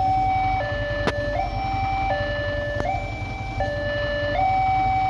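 Railway level-crossing warning siren sounding a two-tone hi-lo wail, switching between a higher and a lower note about every three quarters of a second, to warn that a train is coming and the barriers are down. A low, steady engine rumble runs beneath it, and there are two sharp clicks, about one and three seconds in.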